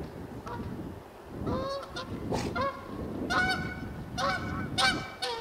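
A run of a dozen or so short, honk-like animal calls, each pitched with a rich ringing tone, coming in quick clusters from about a second and a half in.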